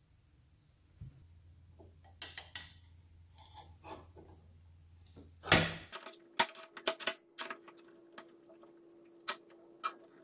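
Steel bars clinking and knocking as they are handled and set upright in a bench vise. Light scattered clinks give way to one sharp knock about halfway through, then a run of irregular metallic clicks and knocks.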